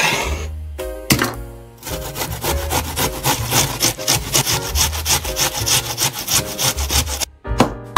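A kitchen knife strikes a wooden cutting board once or twice, then an onion is grated on a metal box grater held against the board in quick, evenly spaced strokes lasting about five seconds.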